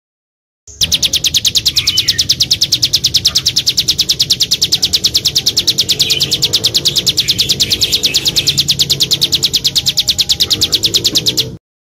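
Small songbird repeating one sharp, high note about eight times a second in a long, even, unbroken run.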